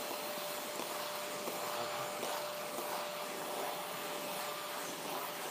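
Riccar upright vacuum with two suction motors running steadily, drawing dog hair off carpet through its hose and Fur-Get-It hand tool: an even rush of air with a constant hum.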